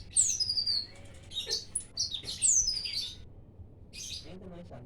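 Small songbird singing a rapid run of high chirps and sharp downward-sliding whistles, with a short pause a little past three seconds in, then softer chirps.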